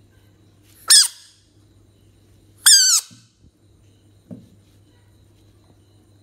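A large frog giving two short, squeaky distress calls about two seconds apart: the first rises briefly, and the second is longer, wavers, and drops at its end. A soft thump follows near the end.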